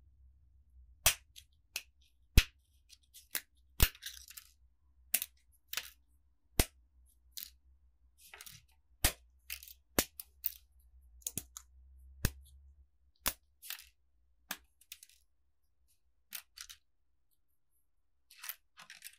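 Thin metal month plates of a desk calendar clicking against each other and tapping on a wooden tabletop as they are handled and stacked by hand. The clicks are sharp and irregular, with brief scraping of plate on plate in between.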